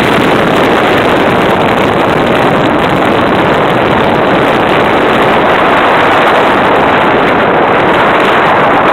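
Steady, loud rushing noise of a boat under way, the ship's engine and the wind on the microphone blending into one even rush.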